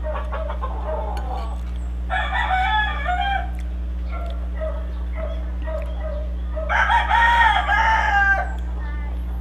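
A rooster crowing twice, about two seconds in and again, louder, about seven seconds in, with faint clucking between the crows.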